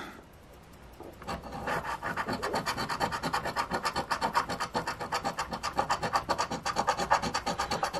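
Scratch-off lottery ticket's coating being scraped off with rapid, even back-and-forth strokes, starting about a second in. The coating is not easy to scratch.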